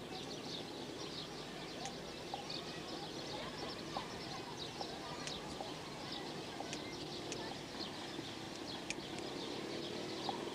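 Many small birds chirping, a dense, irregular chatter of short high calls, over a faint murmur of distant voices.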